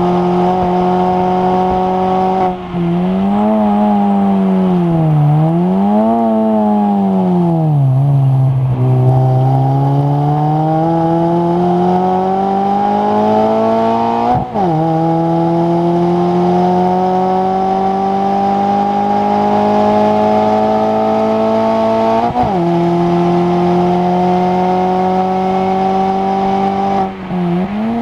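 Racing Mini's engine heard from inside the cabin, working hard around a circuit lap. The revs fall away about two and a half seconds in, then swing up and down several times as the car brakes and shifts down. After that they climb steadily under acceleration, with sharp drops at upshifts about fourteen and twenty-two seconds in and a brief lift near the end.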